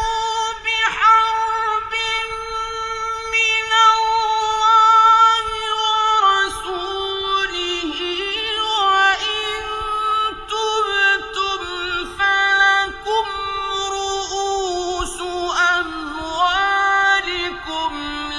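A male Quran reciter chanting in the melodic mujawwad style: one high voice holding long notes and turning them in ornate, wavering runs, the pitch dropping about six seconds in and climbing again near the end.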